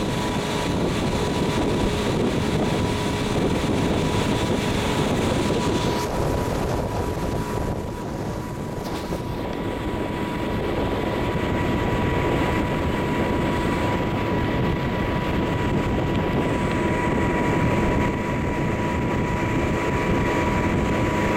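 Motorboat engine running steadily with the boat under way at speed, mixed with the rush of water and wind. A steady high-pitched whine runs through it.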